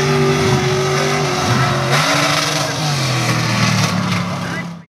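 Lifted mud bog truck's engine running hard and revving, its pitch dropping and then climbing again about two seconds in. The sound cuts off abruptly near the end.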